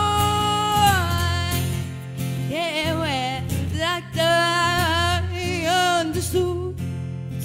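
A woman singing over her own strummed acoustic guitar, holding long notes that waver with vibrato.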